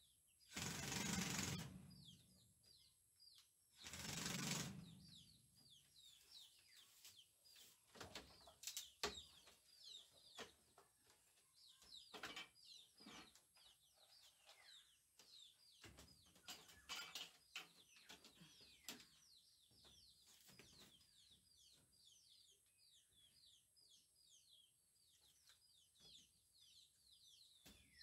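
Two short runs of a cordless drill driving screws into the wooden frame, about three seconds apart, followed by scattered light knocks and taps. Small birds chirp throughout with quick falling notes, many a second.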